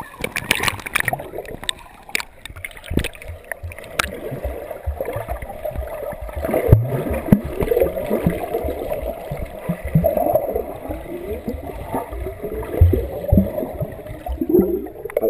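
Swimming-pool water heard through a camera held underwater: muffled bubbling and sloshing with low thumps as a swimmer kicks and paddles close by. Brighter splashing at the surface in about the first second.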